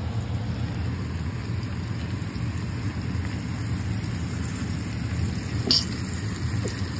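Seasoned top sirloin steak sizzling steadily in hot oil in a cast-iron skillet as it sears. A single sharp click sounds about five and a half seconds in.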